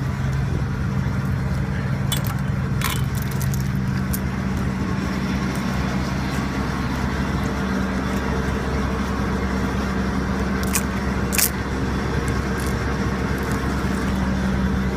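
Diesel engine of a logging machine carrying a Waratah processing head, idling steadily, with a few sharp metallic clinks of chain and tools being handled.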